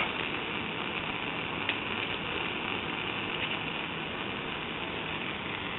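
Steady roaring hiss of a lit Bunsen burner's blue flame, with a faint click about a second and a half in.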